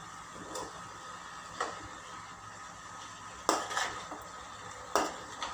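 Spatula stirring chopped red cabbage and vegetables in a nonstick frying pan, scraping and knocking against the pan a handful of times, the loudest a little past the middle.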